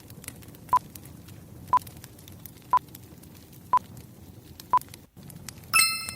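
Interval timer counting down with five short electronic beeps, one a second, then a multi-tone chime marking the end of the interval. Under it, a wood fire crackles softly.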